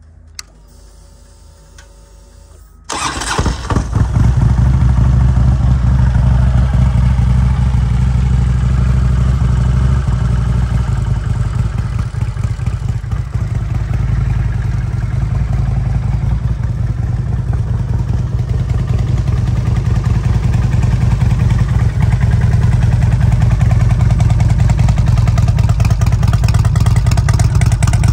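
Harley-Davidson Street Glide's 124-cubic-inch S&S V-twin with Rinehart Racing exhaust starting about three seconds in, catching at once, then running loud and steady.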